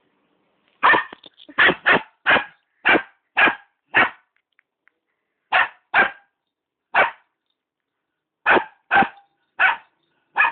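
A small puppy barking: about fourteen short, high barks in quick runs, a volley of seven in the first few seconds, then three, then four, with short pauses between.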